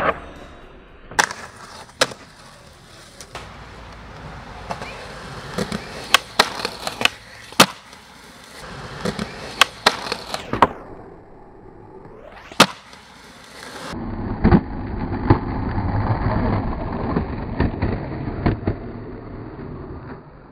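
Skateboarding on concrete: sharp tail pops and board landings, a board grinding along a concrete ledge, and urethane wheels rolling over pavement.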